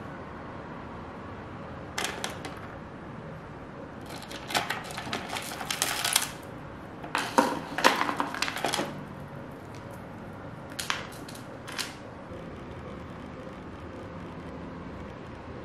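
Small items being set down on a hard tabletop: clicks and light clatters of plastic makeup tubes and cases, and the clinking of a charm bracelet's metal and glass beads, in several short clusters that are busiest about halfway through, over a low steady hiss.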